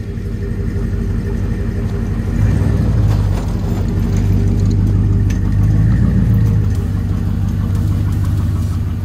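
A vehicle engine idling with a deep, steady rumble that swells up over the first couple of seconds.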